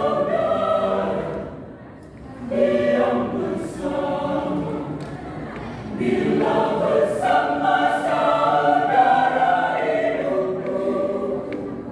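Choir singing, sustained phrases with a brief pause about two seconds in before the next phrase.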